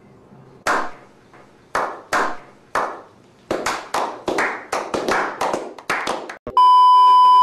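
A small group slow-clapping: a few separate claps that quicken into steady applause. About a second before the end it is cut off by a loud, steady electronic beep.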